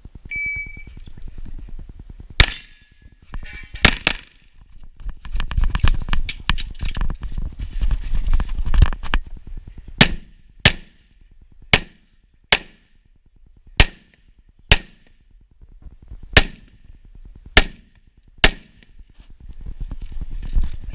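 A shot timer's start beep, a short steady high tone, then a string of pistol shots from an STI Trojan 1911-style pistol in .38 Super: two shots early on, a pause full of movement noise, then about nine more shots spaced half a second to a second and a half apart.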